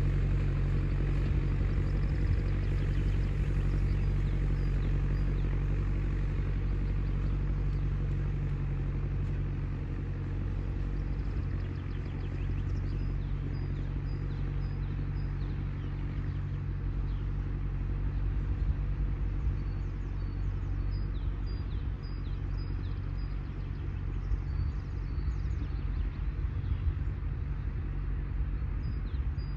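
IHC 844 tractor's diesel engine running steadily under load as it pulls a meadow roller away, a low drone that slowly fades with distance. Small birds chirp in the second half.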